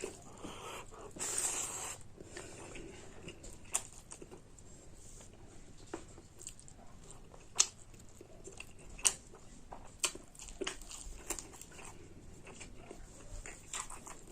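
Close-up mukbang eating sounds: chewing and biting on pork curry and rice, with scattered sharp clicks and a short rustling burst about a second in.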